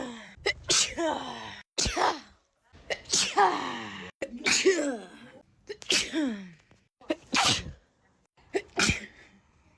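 A person sneezing over and over in a fit, about one sneeze a second, each with a falling voiced cry. The sneezes are an edited loop, repeating in a steady train.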